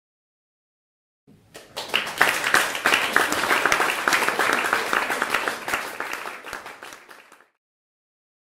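Audience applauding: clapping begins about a second in, then tapers and cuts off abruptly near the end.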